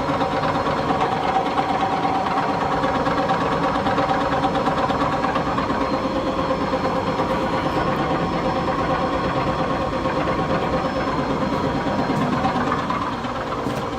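A machine shaft running on bad bearings: a steady mechanical hum with several fixed tones over a fine, rough rattle. It drops a little in level near the end.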